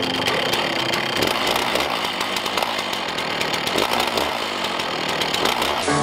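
Gas chainsaw running steadily under load as it rips lengthwise through a large cedar log.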